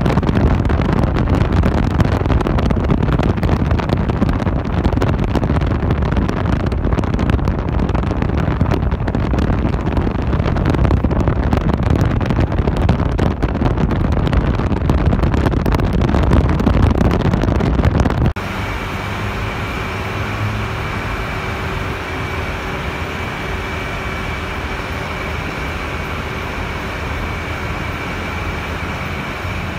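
Road and wind noise of a car driving at speed, heard from inside: a loud, dense rumble. About 18 seconds in it switches abruptly to a quieter, steadier drone with a faint high whine.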